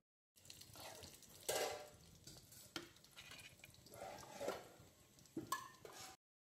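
Faint kitchen handling sounds: a few light clicks and clinks of a metal spoon against a plate, with soft rustling between them and a short ringing clink near the end.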